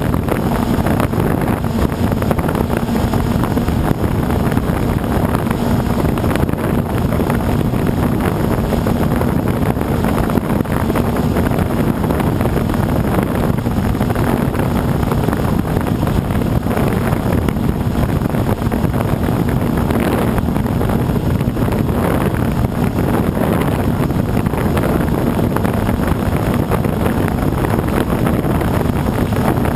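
Blade 350 QX quadcopter's four brushless motors and propellers humming steadily in flight, heard from the GoPro on its own frame. Wind rushes over the microphone at the same time.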